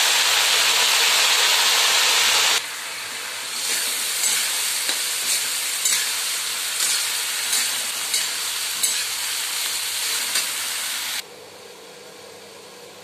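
Sliced ridge gourd frying in hot oil in a metal wok: a loud sizzle at first, then a quieter sizzle as it is stirred, the spatula scraping and clicking against the pan about every half second. The frying stops abruptly about eleven seconds in.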